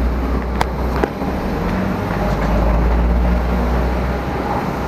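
Steady low rumble of airport apron noise, swelling a little midway, with a couple of sharp clicks about half a second and a second in.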